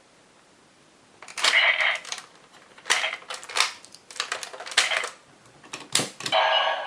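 Hard plastic toy parts clicking and clacking irregularly, a few sharp clicks at a time: a Beast-Battery toy being handled and fitted into its toy gear.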